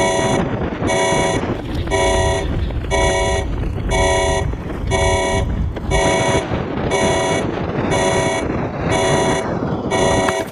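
Emergency alert klaxon blaring in short, even blasts about once a second, a harsh multi-tone horn calling crews to their aircraft, over a low rumble.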